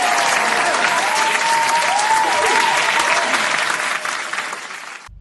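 Crowd applause sound effect: many hands clapping at once, which cuts off suddenly near the end.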